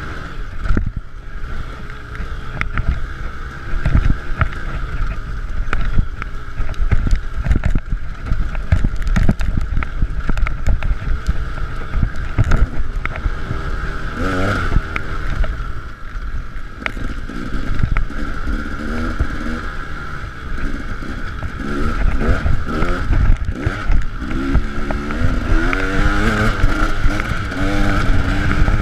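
KTM 300 EXC two-stroke dirt bike engine under hard riding on rough ground, its pitch rising and falling with throttle and gear changes and climbing in steps near the end. Wind rushes over the microphone and the bike knocks over bumps.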